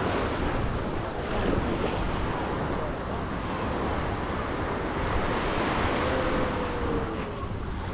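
Sea waves washing onto the shore with wind buffeting the microphone.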